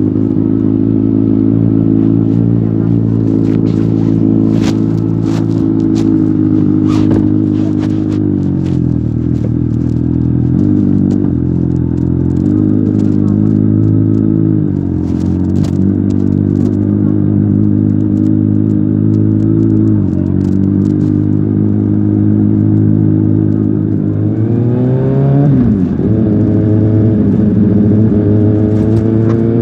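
A 2020 Kawasaki Ninja ZX-6R's 636 cc inline-four runs through an Akrapovic exhaust, holding steady low revs with a few small shifts. Near the end the revs rise sharply, dip once and climb again. Scattered sharp clicks come through in the first half.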